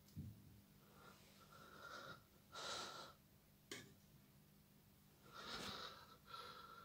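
Faint breathing close to the microphone: four soft, breathy exhalations a second or two apart. A single sharp click comes about three and a half seconds in, over a low steady hum.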